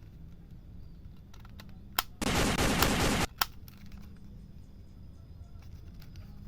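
Toy gun firing: a sharp click, then about a second of rapid machine-gun-like rattle, then another click.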